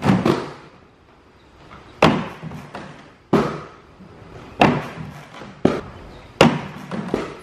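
Aggressive inline skates hitting a wooden grind box and the concrete floor: about six sharp knocks and thuds, a second or so apart, each with a short ring. These are failed royale grind attempts, the skate sliding out off the ledge.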